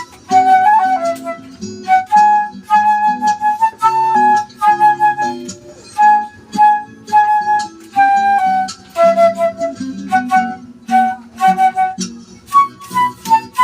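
Flute playing a melody in short, separated notes over a lower accompaniment.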